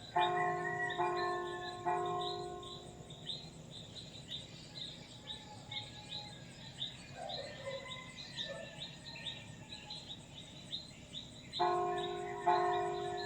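Church bell ringing, three strokes about a second apart, then two more near the end, each stroke ringing on. Birds chirp steadily throughout in short repeated high notes.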